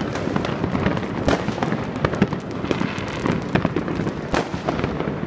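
Fireworks and firecrackers going off all around at once: a dense, continuous crackle of bangs and cracks, with a louder bang about a second in and another about four seconds in.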